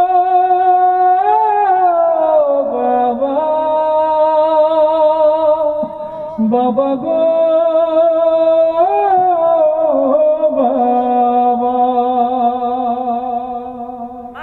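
A man singing through a microphone, drawing out two long held notes with vibrato and slow bends in pitch, one after the other, fading near the end. These are the closing notes of the song.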